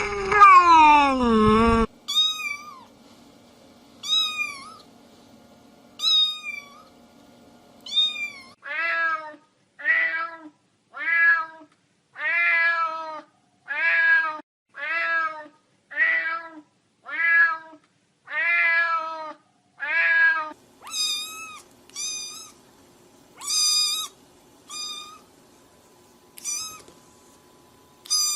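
Cats meowing in a run of separate clips: a long, loud meow falling in pitch, then short high meows about every two seconds, then lower meows repeated about once a second, and near the end high short meows again.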